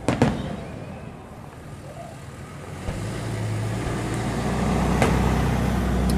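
Fireworks shells bursting overhead: a sharp bang just after the start and a weaker one about five seconds in. From about three seconds in, a low, steady motor-vehicle engine hum sets in and grows louder under them.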